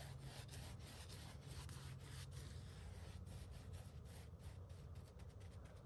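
Faint scratchy rubbing of a paintbrush working latex paint into the end grain of a cedar log, over a low steady hum.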